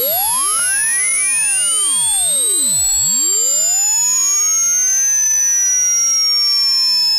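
An electronic pure tone sliding slowly and steadily down in pitch from very high, at an even level, with fainter tones sweeping up and down around it.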